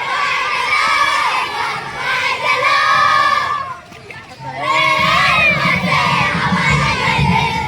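A crowd of children shouting and cheering together in celebration, their voices dropping away briefly about four seconds in before rising again.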